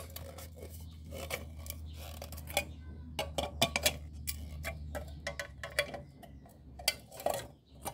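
Pliers clinking and scraping against the torn metal of a cut-open Bosny spray paint can: a run of irregular sharp metallic clicks and scrapes.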